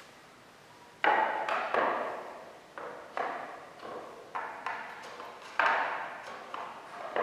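Maple table parts knocking wood on wood as a frame piece is seated into the slots of the legs and pressed home by hand: a string of sharp, irregular knocks starting about a second in, each ringing briefly.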